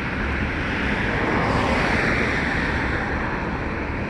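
Road traffic: a vehicle going by, its tyre and engine noise swelling and fading over a couple of seconds on a steady low rumble.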